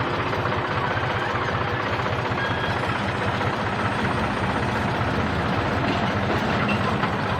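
Diesel engine of heavy farm or earthmoving machinery running steadily.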